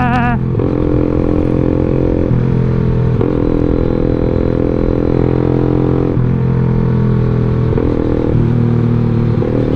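Yamaha Jupiter MX underbone motorcycle's single-cylinder four-stroke engine running under way, heard from the rider's seat. Its note holds steady, then changes in sudden steps several times.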